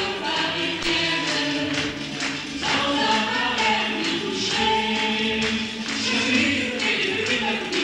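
Stage-musical ensemble of cast and chorus singing together with orchestral accompaniment and a steady beat of about two strokes a second.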